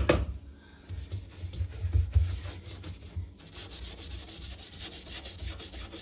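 A brush scrubbing a washing machine's rubber door seal coated in cream cleanser: a rapid, continuous back-and-forth scratching that starts about a second in, after a couple of knocks, and pauses briefly near the middle.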